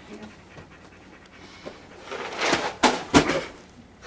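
Hurried packing of a suitcase: a rustle of clothes and handling about halfway through, with two sharp knocks close together just after.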